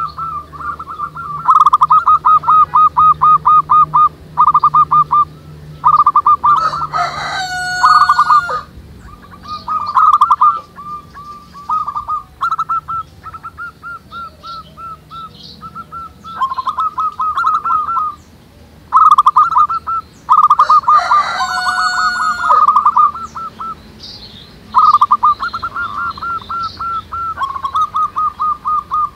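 Several zebra doves (perkutut) cooing, bout after bout of quick staccato coo notes, often overlapping. Two louder, drawn-out calls from another bird cut in about 7 and 21 seconds in.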